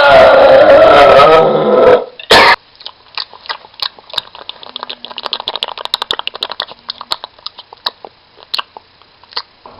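A person making weird noises with the voice and mouth: a loud, wavering, strained vocal sound for about two seconds, then a short loud burst. After that comes a long run of quick, quiet clicks and pops from the mouth.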